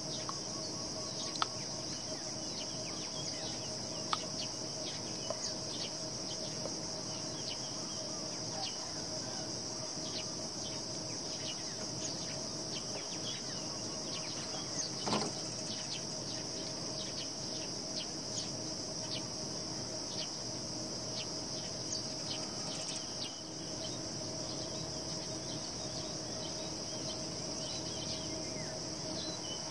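A steady high-pitched drone of insects, with scattered short sharp clicks throughout.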